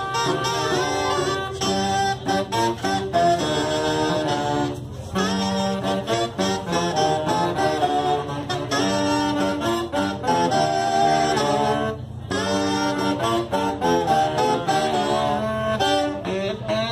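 A saxophone quartet, with a baritone saxophone on the low part, playing several sustained notes together in harmony, with short pauses about five and twelve seconds in.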